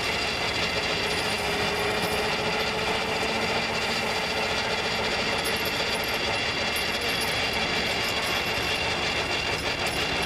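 Threshing machine running at a steady pace, its slat straw stacker carrying straw up to the pile: an even, dense mechanical clatter and rattle with a few steady high whines.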